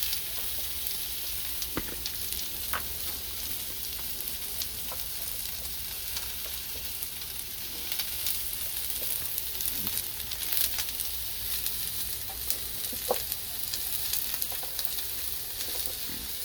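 Sliced onions sizzling in cooking oil on a hot Blackstone flat-top griddle: a steady frying hiss with scattered sharp crackles and pops.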